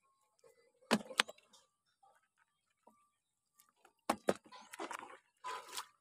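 Wet mesh fish trap being handled up close: two sharp clicks about a second in and two more just after four seconds, followed by rustling of the netting.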